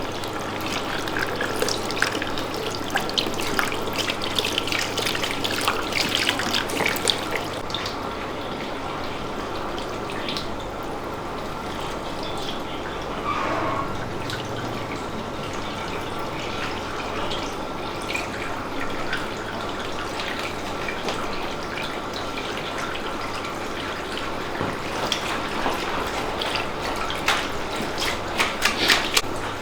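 Water running from a tap and splashing into a basin, as in a hair rinse at a shampoo sink, with scattered small clicks and handling knocks over it.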